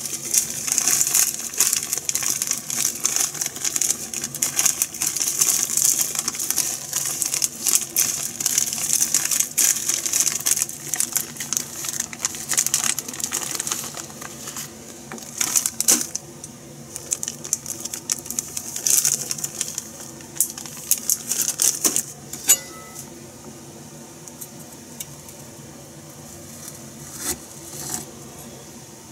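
Food-preparation handling sounds at a cutting board: dense crackly rustling and clicking for about fourteen seconds, then only a few scattered clicks and knocks over a steady low hum.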